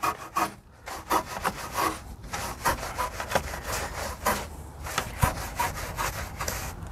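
Wheel woolie brush scrubbing back and forth inside a foam-covered alloy wheel's barrel, a rhythmic rubbing of about three strokes a second.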